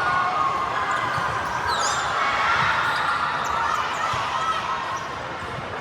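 Balls bouncing on a hard gym floor, many scattered thuds, over a steady murmur of voices in a large hall.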